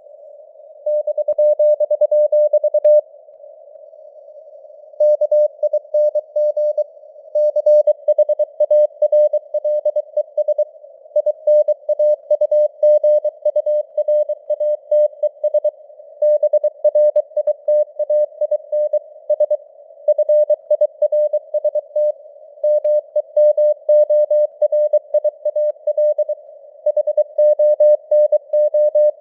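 Morse code keyed at 23 words per minute: a single steady mid-pitched tone switched on and off in dots and dashes, over faint simulated radio noise, with the signal strength fading up and down (QSB). There is a pause of about two seconds a few seconds in, between runs of characters.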